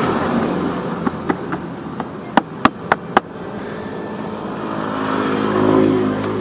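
A motor vehicle passing by, its engine hum swelling and fading in the second half, over a steady traffic hum. Before it, a quick run of sharp clicks, four loud ones in a row about two and a half seconds in.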